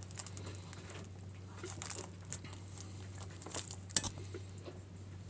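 Hand-sewing a slide onto a sail: faint rustling of sailcloth and thread with scattered small clicks, and one sharper click about four seconds in, over a steady low hum.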